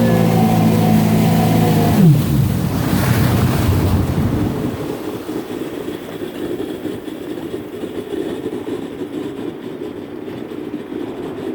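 Jet ski engine running at a steady pitch, then its note drops away quickly about two seconds in. After that, water and wind noise slowly fade.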